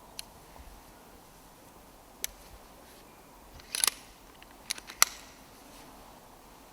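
A few short, sharp mechanical clicks over a faint steady background: a quick cluster just before four seconds in, and the sharpest click about five seconds in.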